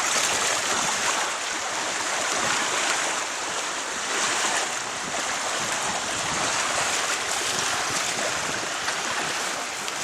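Steady rushing noise of wind and water, rising and falling slightly, with no engine tone.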